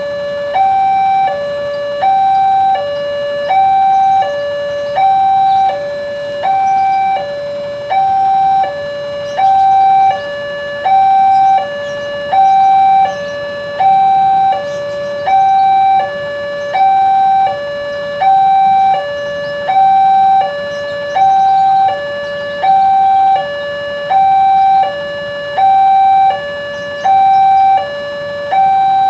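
Railway level-crossing warning alarm sounding: a loud electronic two-tone signal that alternates steadily between a lower and a higher pitch, each held about a second, warning that a train is approaching and the barrier is closing or closed.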